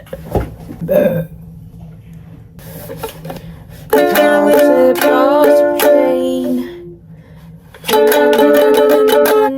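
Ukulele strummed in chords, in two passages with a pause of about a second between them, after a few knocks and handling sounds at the start.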